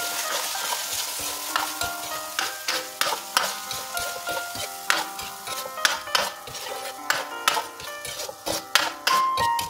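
Metal ladle stirring ground beef and tomato paste in a hot wok while the sauce sizzles. The sizzle is strongest at first, then the ladle's scraping knocks against the pan take over, about two a second.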